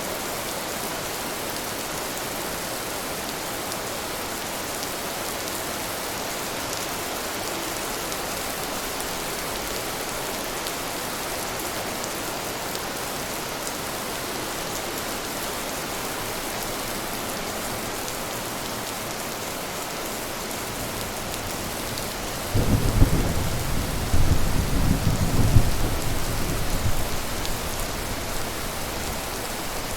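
Steady rain falling. About three quarters of the way in, a loud rumble of thunder breaks in suddenly, rolls for several seconds and fades away.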